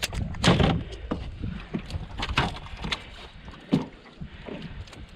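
Blue catfish thudding and flopping against the floor of an aluminum johnboat: a handful of separate knocks, the loudest about half a second in.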